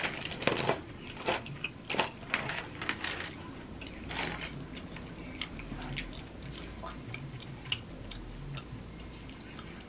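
Close-up mouth sounds of chewing food: wet smacks and clicks, busiest in the first few seconds, then thinning out to occasional small ticks.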